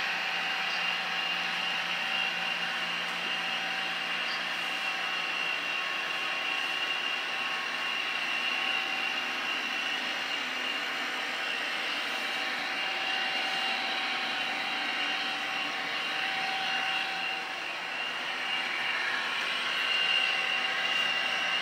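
Model train running on a layout: steady whine of the model diesel locomotives' motors and gears with wheels rolling on the track, briefly louder near the end as the locomotives pass close.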